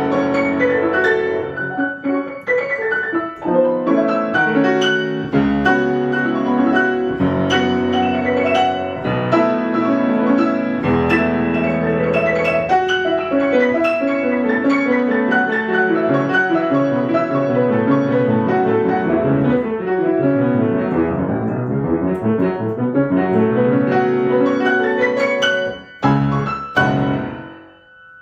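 Solo piano playing the closing bars of a lively piece, ending with two loud final chords near the end that ring out and fade.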